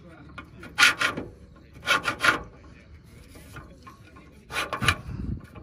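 Rasping scrape of a camper trailer ladder's telescopic legs being slid and worked by hand, in three short bursts about a second in, two seconds in and near the end.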